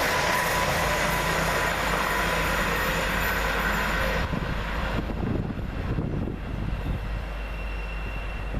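East Midlands Railway Class 222 Meridian diesel multiple unit passing through the station at speed: a loud steady rush of engine and wheel-on-rail noise that drops away suddenly about four seconds in as the train clears.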